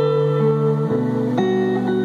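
Solo electric guitar playing sustained, ringing notes and chords, with the notes changing about a second in and again shortly after. No singing.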